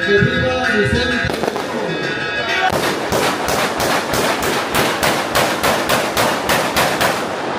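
A string of firecrackers going off: sharp bangs about four a second, starting about three seconds in and running for several seconds, with music and voices behind them.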